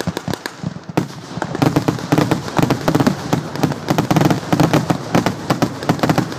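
Fireworks crackling and popping in a rapid, dense string of sharp cracks, many per second. A sharp bang comes about a second in, after which the crackling grows denser and louder.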